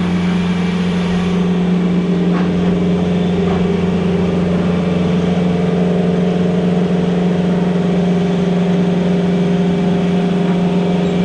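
Engine of a 1990 New Holland skid steer running steadily at one constant speed.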